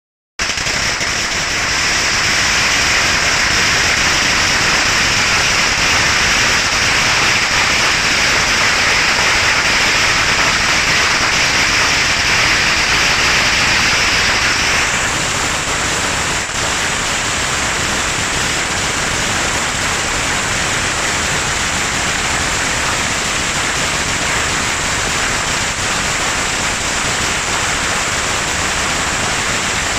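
Strings of firecrackers going off in a loud, dense, unbroken crackle. The crackle eases slightly about halfway through.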